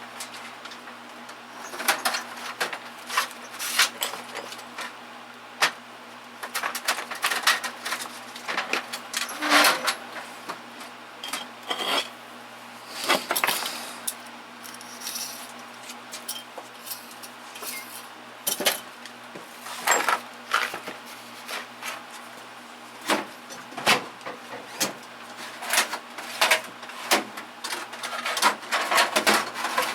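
Metal tools and parts clinking and clattering as they are handled and dropped into toolbox drawers, in irregular clusters of sharp clicks with short pauses between.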